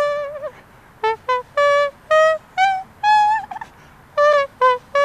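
Vocal imitation of a trumpet by a beatboxer: a fanfare-like phrase of short, buzzy, pitched notes, some stepping up in pitch, with held notes that waver in vibrato, one near the start and one near the end, and a short pause about half a second in.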